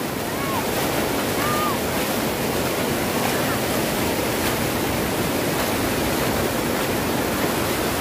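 Overflowing lake water pouring over a long low weir and rushing across the shallow flooded spillway: a steady, loud rush of water.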